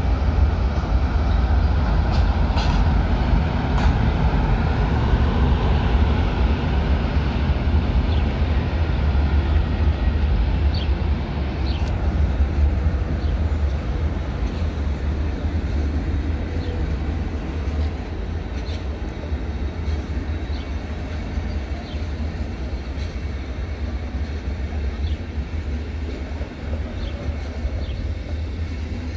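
FlixTrain passenger train, hauled by an electric locomotive, rolling past: a steady heavy rumble with scattered clicks of the wheels over the rails, gradually getting quieter.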